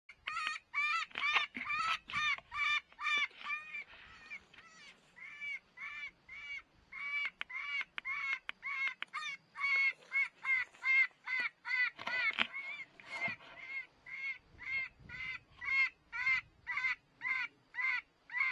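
A bird calling over and over in short, evenly spaced notes, about two to three a second, each note rising and falling in pitch. The calls briefly grow fainter about four seconds in, then carry on.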